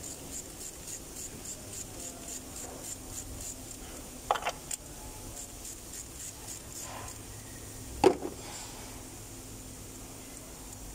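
Hand tools being worked in a car's engine bay, engine off: two short sharp metal clinks, about four and eight seconds in, the second louder, over faint rapid ticking during the first half.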